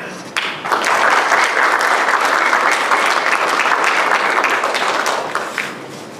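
Audience applauding after a talk, starting about half a second in and dying away near the end.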